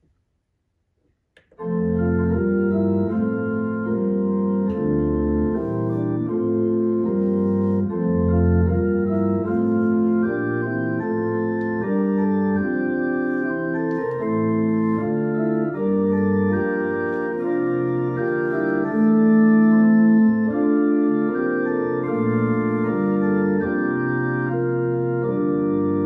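Organ playing slow, sustained chords that change about once a second, starting after about a second and a half of silence.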